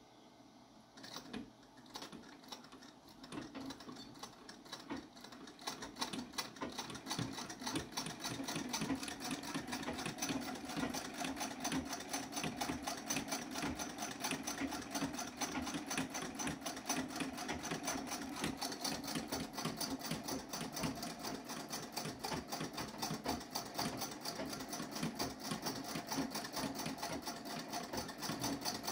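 1891 Singer treadle sewing machine stitching: a rapid, even mechanical clatter that starts slowly in the first few seconds, picks up speed over several seconds, then runs fast and steady.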